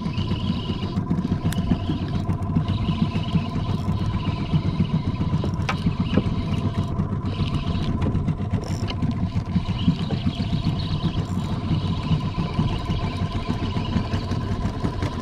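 Small boat's motor running steadily at low speed, a continuous rumble with a thin, steady whine above it.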